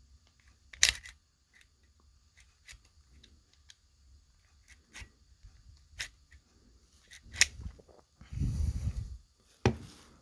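Sharp metallic clicks and light handling noise of a Star BKS 9mm pistol's parts being worked during reassembly: the loudest click about a second in, a few more later, and a brief rustle near the end.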